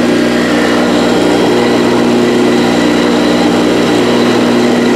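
3018 CNC router running a milling job: brushless spindle at about 12,500 RPM taking 1 mm-deep passes into a wood block, under the loud, steady buzz of the mini air compressor mounted on the machine. The compressor shakes the machine's frame, which adds to the hum.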